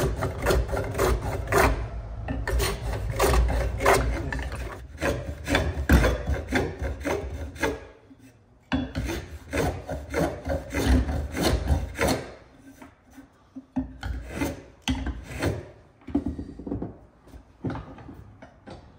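Record 020C compass plane cutting along a curved wooden edge: a rapid run of short scraping strokes, breaking off briefly about eight seconds in, resuming, then giving way to quieter, sparser rubbing strokes.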